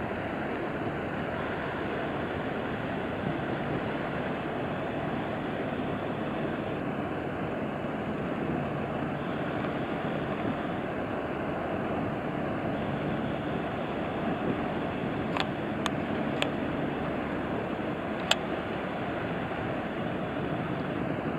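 Steady rumble and wash of passing inland cargo barges under way on a river, with wind on the microphone. A few short clicks come near the end.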